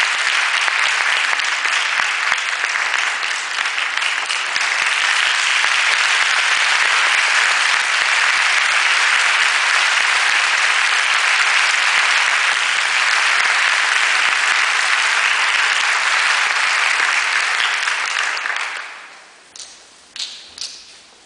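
Theatre audience applauding steadily for the dancers, dying away quickly near the end, followed by a few separate knocks.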